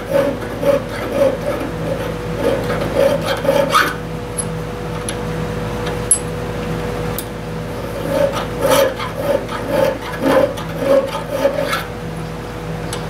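Hand file rasping back and forth over brazed filler in a clutch rod's pin hole, about two to three strokes a second. The strokes pause for a few seconds midway, then resume. A steady hum runs underneath.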